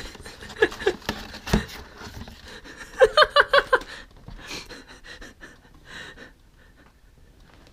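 A man's breathing and panting, with a quick run of five or six short huffing sounds about three seconds in, and faint handling clicks after it.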